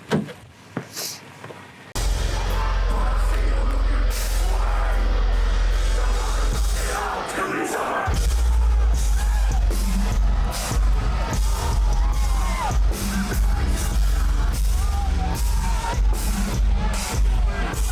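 Loud heavy music with a deep low end, drums and vocals starts suddenly about two seconds in.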